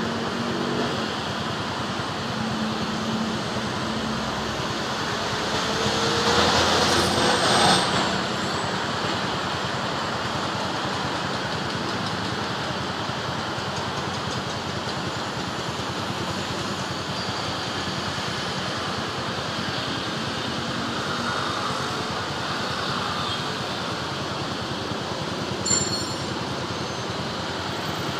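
Road traffic of cars and motorcycles, a steady hum of engines and tyres. About six to eight seconds in, one vehicle passes closer and louder, its engine rising in pitch. A brief sharp sound near the end.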